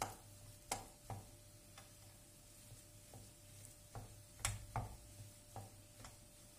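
Wooden and metal spoons knocking and scraping against a nonstick frying pan while stirring a potato-and-onion filling: a handful of irregular sharp taps, bunched together about four to five seconds in.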